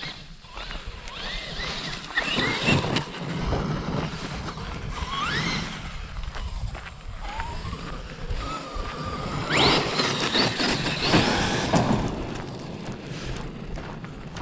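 Electric motor of a Traxxas RC monster truck whining up in pitch several times as it accelerates hard, the steepest and loudest climb about two-thirds of the way through, with its tyres scrabbling and spraying gravel between the bursts.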